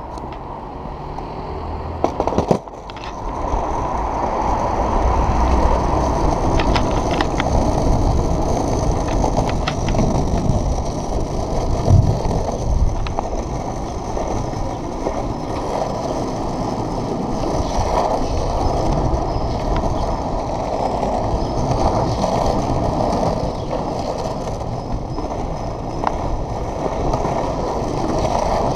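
Globe Big Blazer cruiser skateboard set down with a couple of sharp knocks about two seconds in, then its soft wheels rolling steadily over brick paving, with small clicks from the joints between the stones.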